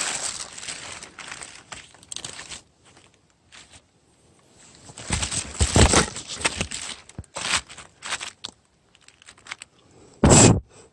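Irregular close rustling and crunching, coming in uneven bursts, with the loudest ones about halfway through and just before the end.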